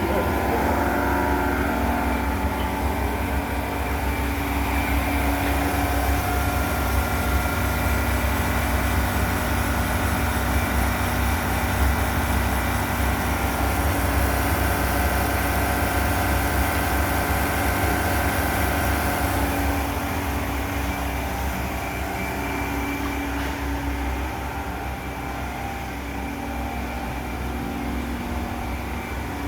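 Tube ice machine running steadily: a constant low machine hum with several steady tones and a hiss, easing slightly about two-thirds of the way through.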